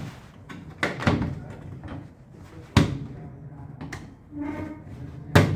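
A series of sharp knocks and bangs, like a lid or panel being handled and set down. The loudest come about a second in, near three seconds and near the end, with a short pitched tone in between.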